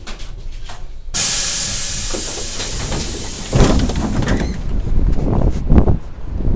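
LVS-86K tram: a sudden loud hiss about a second in that lasts a couple of seconds, then a low rumble with repeated knocks from the tram's bogies.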